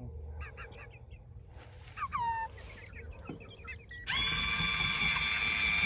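Hens making soft, short clucks, with one falling squawk about two seconds in. About four seconds in, the electric motor of a Run-Chicken automatic coop door starts suddenly and runs with a steady whine.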